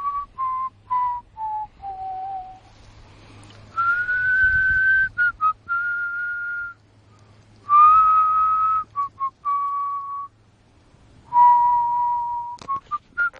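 A person whistling a slow tune, short notes stepping down in pitch at first, then long held notes with brief gaps between them.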